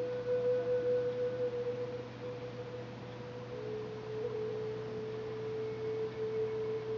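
Background meditative music of long held pure tones, like a synth drone, stepping down to a slightly lower note about three and a half seconds in.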